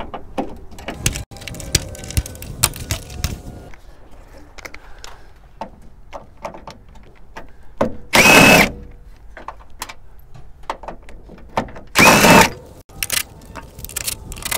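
Cordless drill spinning a 13 mm socket on a long extension, running in two short bursts of about half a second each to back out the door hinge bolts. Clicks and knocks of the socket and tools on the metal come in between.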